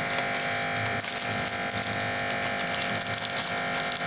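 A steady electrical machine hum with a high, constant whine, over faint crinkling as a plastic packet of dried papad is torn open by hand.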